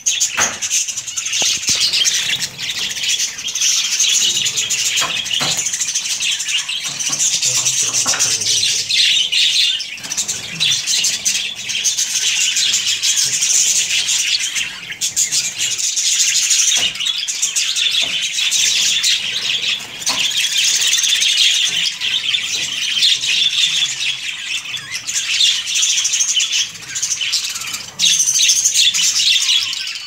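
A flock of budgerigars chattering and chirping without a break, a dense high-pitched warble, with a few light knocks mixed in.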